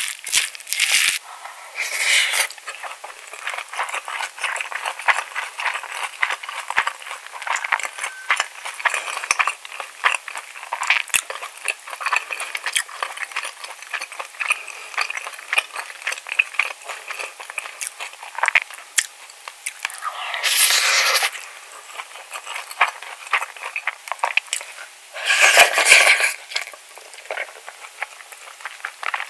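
Close-miked eating of spicy cockle bibimbap: sticky rice chewing and wet mouth clicks, with a plastic spoon stirring and scraping rice in a stoneware bowl near the start. Louder noisy bursts come about two-thirds through and again near the end.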